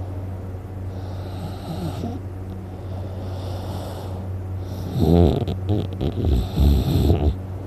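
A sleeping person snoring: quieter breaths, then about five seconds in a loud, rough, pulsing snore lasting about two seconds. A steady low hum runs underneath.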